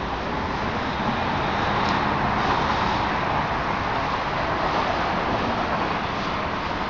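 Steady outdoor road-traffic noise, a little louder in the middle.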